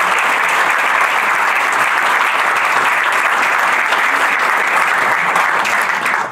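Audience applauding steadily with dense, even clapping, which cuts off suddenly at the very end.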